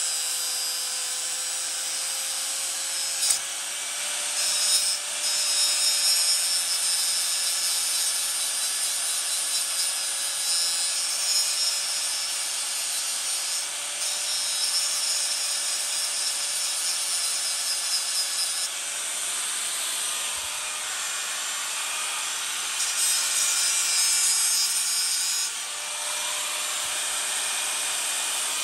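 Power tool running steadily: a motor whine with a harsh hiss from the work, which shifts about two-thirds of the way through and again near the end.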